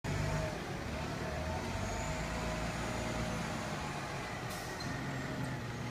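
Fire truck's engine running with a steady low rumble as the truck maneuvers, with a brief faint hiss about four and a half seconds in.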